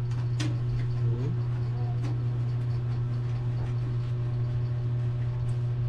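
A steady low hum, with a few faint light taps.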